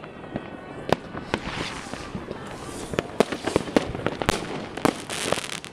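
Many fireworks and firecrackers going off at once: irregular sharp bangs, a few close and loud, over a constant spatter of more distant pops and hissing crackle.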